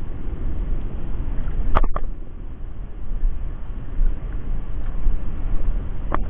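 Wind buffeting the microphone over the sea, a steady low rumble, with two short knocks, about two seconds in and near the end.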